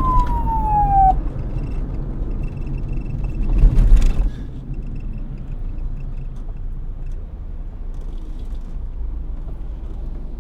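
Police siren winding down, one falling tone that cuts off about a second in, over a steady low vehicle rumble. A brief loud rush of noise comes around four seconds in.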